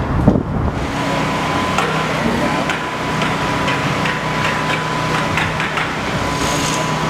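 Construction-site machinery running steadily, with a thin high whine that sets in about a second in and scattered light metallic clicks and clanks.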